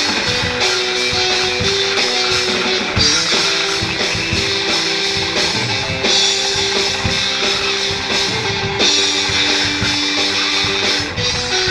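Background music: a band track with guitar and drum kit playing a steady beat.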